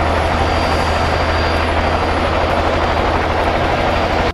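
Helicopter rotor noise, a steady, loud, rapid chopping whir that cuts off suddenly at the end.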